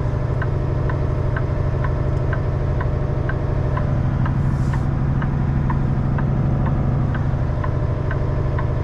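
Semi truck's diesel engine running steadily at low revs while reversing slowly, with a light ticking repeating about twice a second over it.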